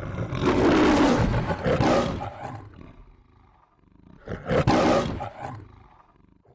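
The MGM logo's lion roar: a lion roaring twice. The first roar is long, lasting about two and a half seconds, and the second is shorter and starts about four seconds in.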